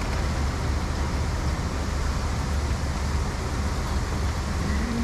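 Grain bin sweep auger and its electric motor running, a steady loud mechanical rumble as it drags grain toward the centre of the bin.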